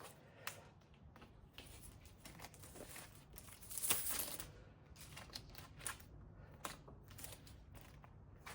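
Handlebar tape being handled and wrapped around a bike's handlebar: faint crinkling and small clicks, with a longer rustling, tearing hiss about four seconds in.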